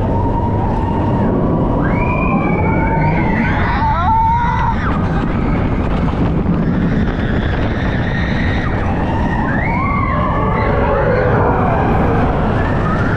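Expedition Everest roller coaster in motion: a loud, steady rumble of the train on the track and rushing air. Over it come high wails that rise and fall, strongest twice.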